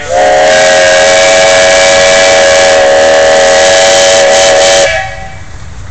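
Steam traction engine's whistle sounding one loud, steady blast of about five seconds with a hissy edge, cutting off sharply near the end.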